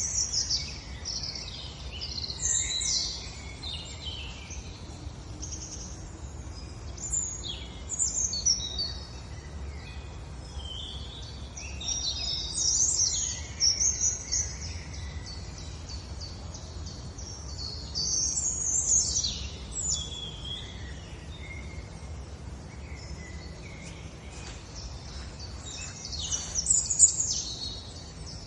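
Outdoor birdsong ambience: many small birds chirping and trilling in repeated flurries over a steady low background rumble. It cuts in suddenly.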